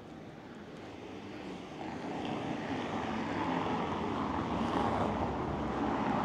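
A motor vehicle approaching along the street, its engine and tyre noise growing steadily louder over several seconds.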